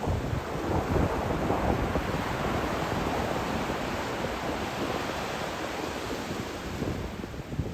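Sea waves washing on the shore in a steady wash of surf, with wind buffeting the microphone.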